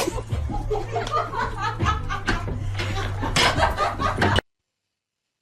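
People chuckling and laughing over a low steady hum, cut off abruptly into silence about four seconds in.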